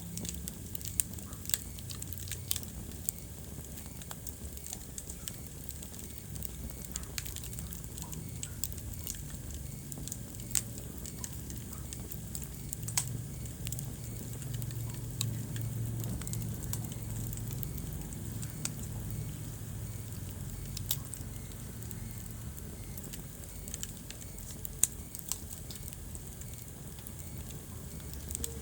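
Wood fire burning in a fireplace, crackling with irregular sharp pops over a low, steady rumble of the flames; one louder pop comes near the end.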